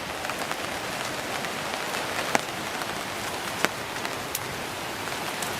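Wood campfire burning with a steady crackling hiss, broken by a few sharp pops.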